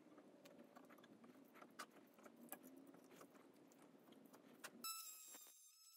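Faint metallic clicks and clinks of threads being hand tapped into aluminum parts with a tap. Near the end the sound cuts suddenly to a steady high-pitched tone with overtones.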